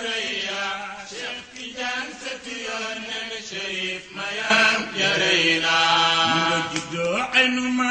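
Men's voices chanting a Sufi devotional song, long melismatic notes held and drawn out, with a rising slide in pitch near the end.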